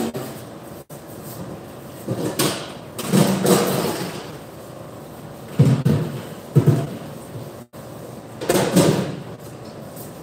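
Food-prep handling noises at a stainless steel counter: a handful of separate knocks, thuds and rustles as items are picked up, handled and set down. The sound cuts out for an instant twice.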